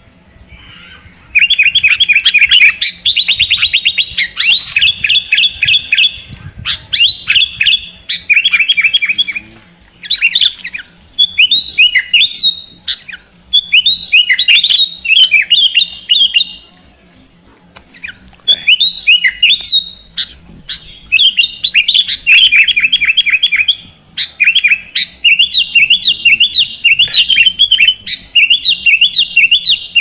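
Sooty-headed bulbul (kutilang) singing in rapid, chattering runs of quick repeated notes. The phrases last a few seconds each, with short pauses between them.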